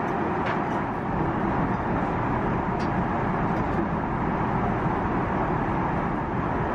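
Steady in-flight cabin noise of an Airbus A380 airliner: an even rumble and rush of engines and airflow. A couple of faint clicks of tableware come through as a plate is set down.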